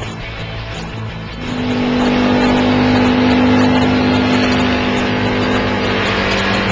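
Side-by-side off-road vehicle's engine running low, then speeding up about a second and a half in as the vehicle pulls away, holding a steady pitch under acceleration, with tyre and wind noise over dirt.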